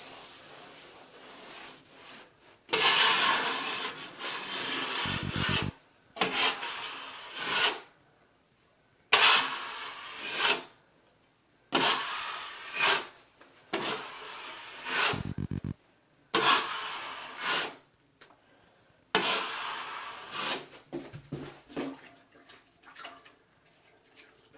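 A 6-inch drywall knife drawn across the wall patch in about seven scraping strokes, each a second or two long, with short pauses between.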